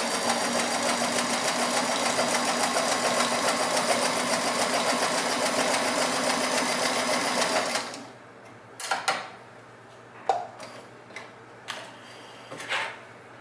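An all-metal Sears Kenmore 158-series sewing machine with a 1.2 amp motor and two-belt drive, stitching steadily at speed through two layers of marine vinyl. The stitching stops abruptly about eight seconds in, and a few light clicks and knocks follow.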